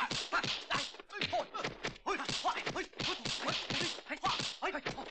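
Rapid exchange of punch and block sound effects, sharp whacks several times a second: studio-dubbed fight foley of a 1970s kung fu film.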